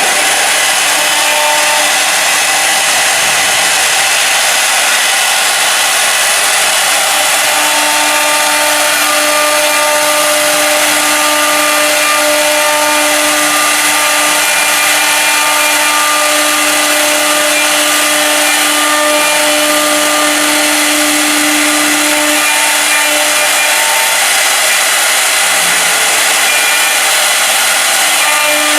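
The air-cooled spindles of a four-axis rotary CNC router running and rough-cutting a workpiece: a loud, steady hiss and whine, with several steady tones that swell and fade.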